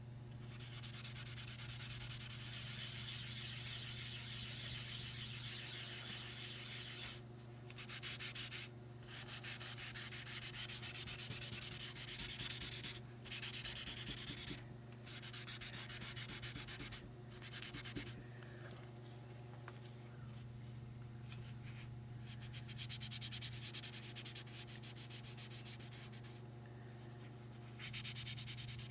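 Coloured pencil shading on drawing paper: rapid back-and-forth strokes making a dry, scratchy hiss in long stretches, broken by several brief pauses.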